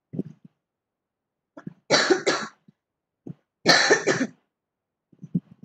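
A person coughing, a quick double cough about two seconds in and another cough shortly before four seconds.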